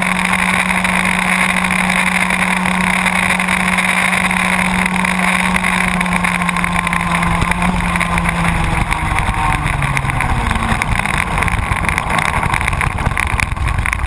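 Baby ROK kart's small two-stroke engine, heard on board, held at steady high revs. About nine seconds in the revs fall away as the kart slows, leaving a rough low rumble.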